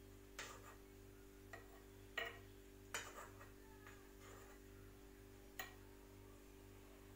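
A metal spoon clinking lightly against a frying pan and a clay tagine dish as olives are spooned out: about six short clicks, the two loudest near the middle, over a faint steady hum.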